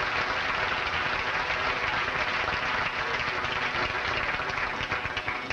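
Audience applauding, a dense patter of many hands that thins out and fades near the end.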